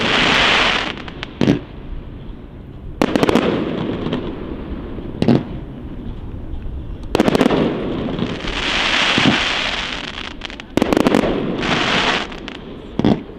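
Aerial fireworks display: shells bursting with sharp bangs every second or two, several of them followed by a long crackling hiss from the effects.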